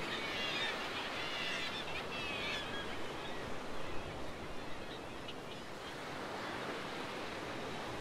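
Black-legged kittiwakes calling at their cliff nesting colony over a steady wash of surf. The calls thin out about three seconds in, leaving the sea.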